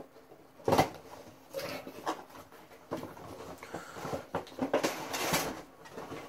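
Cardboard Funko Pop box and its packaging being opened and handled: irregular rustles, scrapes and taps, with a sharp one about a second in and a longer stretch of rustling near five seconds.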